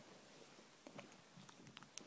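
Near silence: quiet room tone with a few faint soft taps and scuffles.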